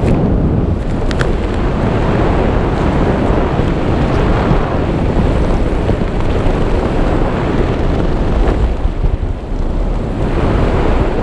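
Steady wind noise rushing over the camera microphone during a parachute descent under an open canopy.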